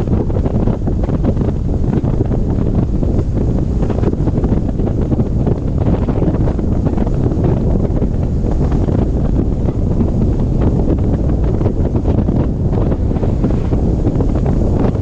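Strong wind buffeting the microphone: a loud, steady low rumble with constant gusty flutter and no distinct strikes.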